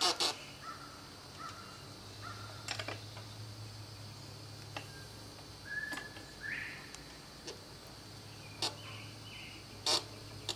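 Scattered light metallic clicks as a bicycle pedal is tightened into the crank arm with a wrench, with a few short bird calls in the background.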